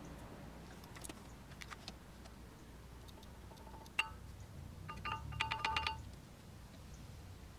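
Brake pads clinking against the metal clips of the caliper bracket as they are seated and wiggled: a few light ringing metal clicks, then a quick run of taps about five to six seconds in.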